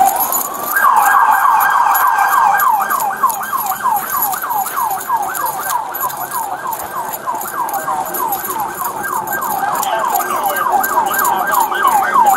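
Police car siren on a fast yelp, sweeping up and down about three to four times a second. It begins with a short rising wind-up and breaks into the yelp about a second in.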